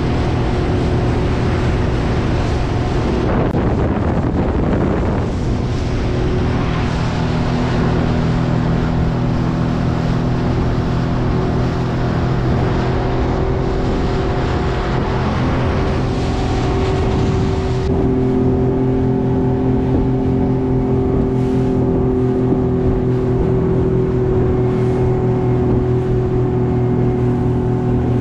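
Small open motorboat's engine running steadily at cruising speed, with the rush of water along the hull and wind. The rushing eases about eighteen seconds in while the engine note holds.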